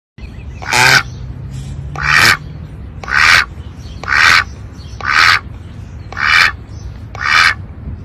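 Duck quacking: seven loud, nasal quacks at a steady pace of about one a second, over a low steady background rumble.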